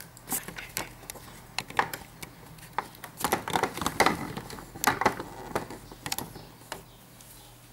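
Close handling noise of fingers tapping and rubbing on a camcorder right by its microphone: irregular clicks and short scrapes, busiest in the middle and thinning out near the end.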